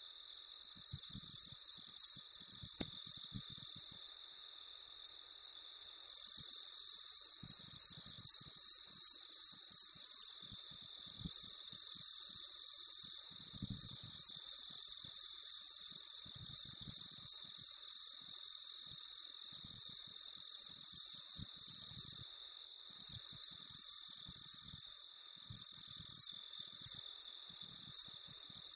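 Crickets singing: a regular high chirping, about three chirps a second, over a steady trill.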